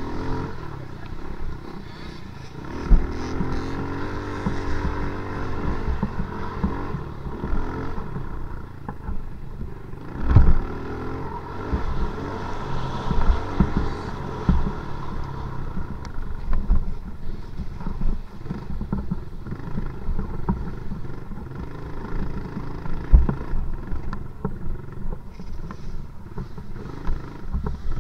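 Dirt bike engine ridden on a motocross track, heard from on board, its pitch rising and falling with the throttle, with several sharp thumps along the way.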